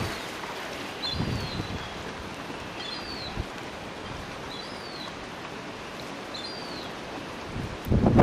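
Steady hiss of rippling water, with a bird calling a short rise-and-fall note about every one and a half seconds. Near the end, wind buffets the microphone.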